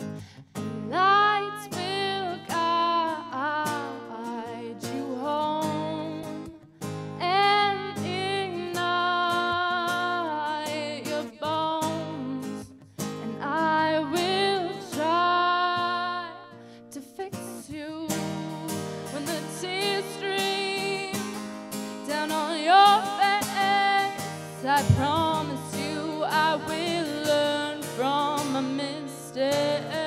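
A woman singing, with held, wavering notes, to an acoustic guitar accompaniment.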